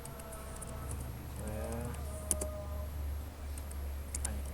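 Typing on a computer keyboard: scattered, irregular keystrokes, with a steady low hum beneath.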